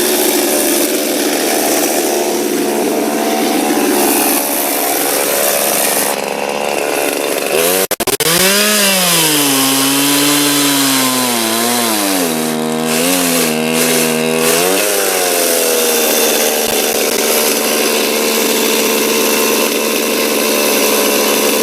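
Chainsaw cutting logs at high revs. About eight seconds in the sound cuts out briefly, then the engine runs at lower speed, wavering up and down for several seconds, before it climbs back to steady full throttle.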